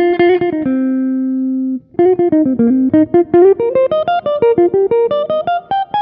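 A Tokai ALS62 GT Les Paul-style electric guitar is played through an amp with a distorted sound and its tone knob rolled down, with both humbuckers selected. It plays a quick picked lick, then a note held ringing for about a second, then, after a brief break, a fast run of picked single notes that dips and then climbs.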